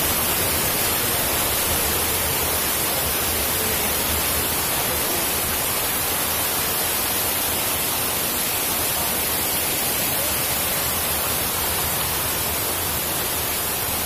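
Rushing water of a shallow waterfall cascade sheeting over sloping rock, a steady hiss heard close up.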